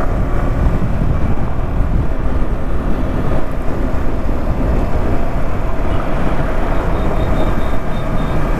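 Steady wind rush and road noise from a moving vehicle: a loud, unbroken low rumble.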